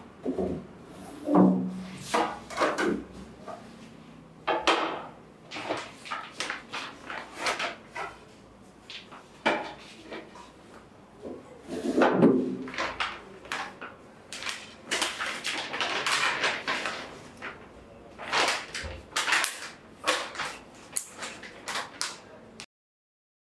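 Plates clattering and knocking as they are set down on a table, followed by a paper takeaway bag rustling and plastic food containers being handled. The sound cuts off suddenly near the end.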